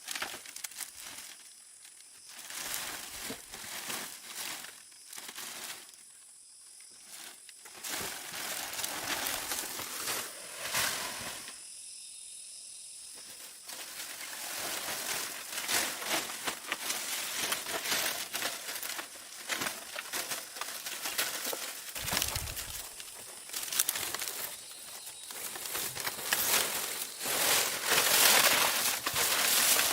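Irregular rustling and crinkling handling noise with scattered light knocks, busiest and loudest near the end.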